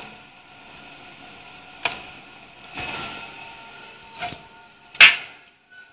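Automatic hinge torque tester running: a steady motor whir with several sharp clicks, and a brief high-pitched tone about three seconds in.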